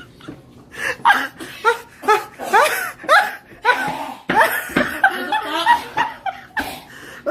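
People laughing in a string of short bursts, starting about a second in.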